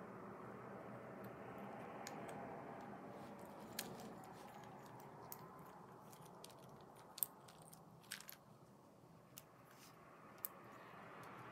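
Faint clicks and taps of a jointed plastic Spider-Man action figure being handled and posed, about half a dozen scattered through the second half, the loudest about seven seconds in, over low room noise.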